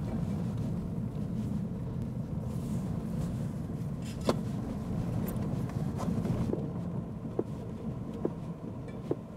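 Tyres of a Rivian R1T electric pickup rolling slowly over a loose gravel trail: a steady low rumble with no engine note, and occasional sharp clicks of gravel under the tyres.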